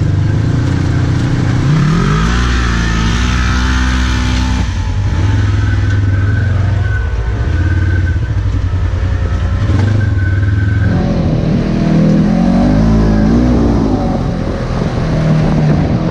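Polaris RZR side-by-side's engine running while under way, a steady low drone that revs up and down in pitch a couple of seconds in and again about three-quarters of the way through.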